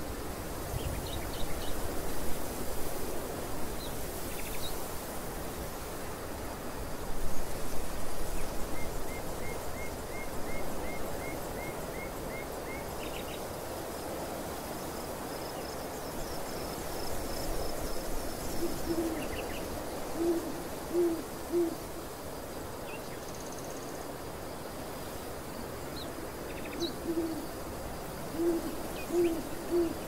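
Wind across an open barley field, with a steady hiss and low rumble on the microphone. Small birds chirp now and then, one giving a quick run of high notes, and a bird gives low cooing hoots in groups of two or three near the middle and again near the end.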